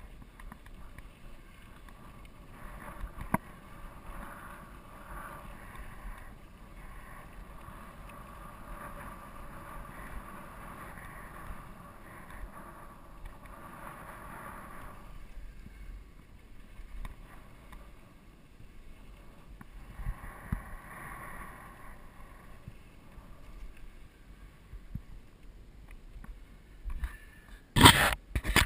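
Steel hardtail mountain bike rolling down a dry dirt singletrack: a steady rush of tyre and trail noise, with an occasional knock as the bike rattles over bumps. Near the end, loud crackling and scraping as the bike brushes through a dry shrub.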